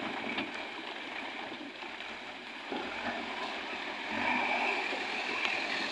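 Flowing river water mixed with the diesel engine of a backhoe loader running as it works in the shallow riverbed.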